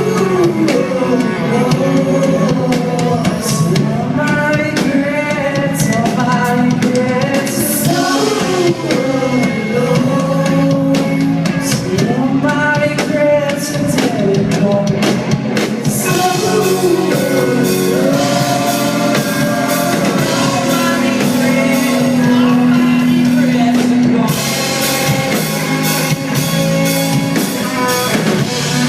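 Rock song with a lead vocal singing over drums and guitar, with little deep bass.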